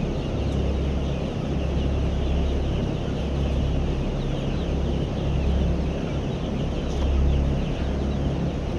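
A flock of desi chickens clucking and calling over one another, with a low rumble underneath that swells and drops every second or two.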